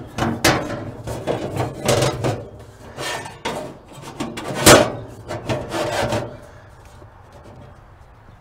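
Steel plate scraping and rubbing against the inside of a pellet smoker's sheet-metal barrel in short strokes as it is pushed into place, with one sharp metal clunk a little past the middle. It stops about six seconds in.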